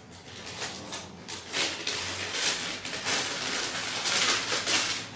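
Tissue paper rustling and crinkling as it is pulled back and unfolded inside a cardboard shoebox, in a series of surges.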